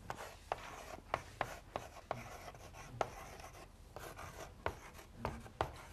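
Chalk writing on a blackboard: irregular sharp taps as the chalk strikes the board, with soft scratching between them as the letters are drawn.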